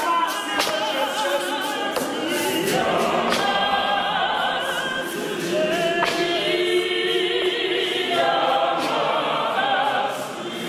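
A Zionist church choir and congregation singing a gospel hymn together, many voices in parts, with a few sharp knocks scattered through the singing.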